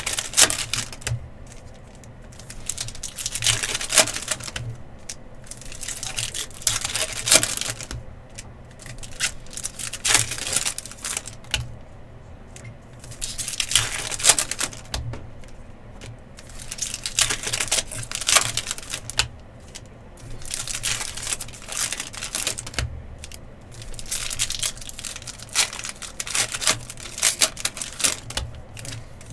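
Football trading-card packs being torn open, their wrappers crinkling and the cards handled, in clusters of crackling every second or two.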